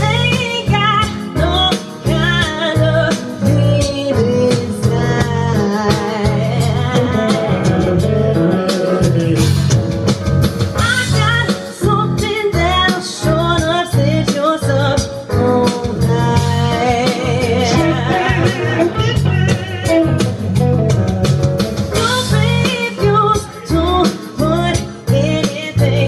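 Live performance: a woman singing into a microphone, accompanied by a blues-style electric guitar.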